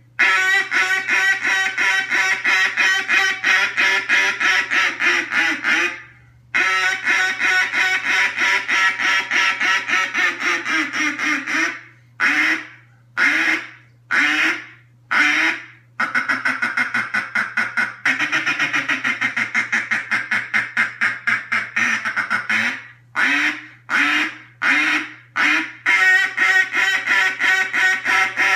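A reproduction Chick Meade Reelfoot duck call blown by mouth. Long runs of rapid quacks, several a second, are broken twice by a few slower, separate quacks.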